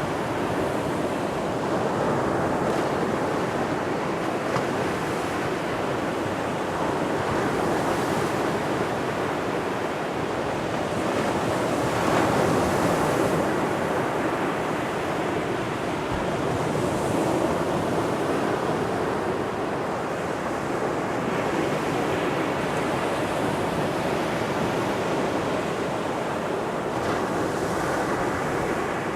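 Ocean surf breaking and washing up on a sandy beach, a continuous rushing that swells and eases gently as the waves come in. Some wind buffets the microphone.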